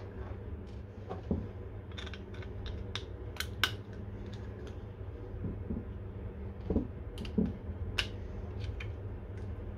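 Irregular small clicks, taps and rubbing from a geared DC motor and its wires being handled and pushed into a 3D-printed plastic cover, over a steady low hum.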